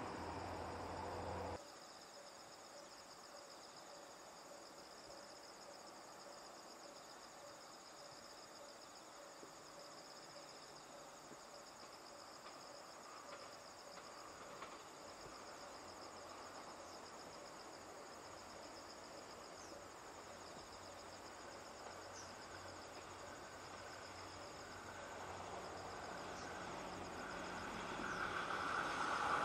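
Insects chirping steadily in an even, pulsing high trill, faint against quiet countryside. A louder sound cuts off abruptly about one and a half seconds in, and over the last few seconds an approaching train's rumble grows steadily louder.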